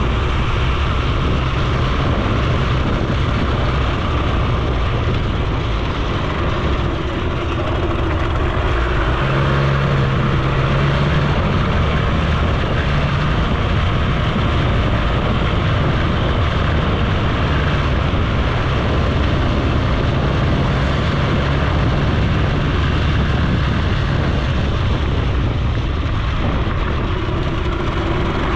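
Suzuki FZ 50 moped's small two-stroke single-cylinder engine running while riding on a gravel and dirt road, mixed with steady wind and tyre noise. The engine note is briefly stronger about nine to eleven seconds in.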